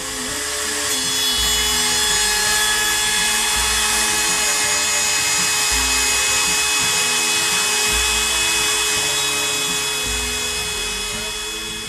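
Makita compact trim router running and cutting plywood, a steady high-pitched whine that swells in over the first second and fades near the end.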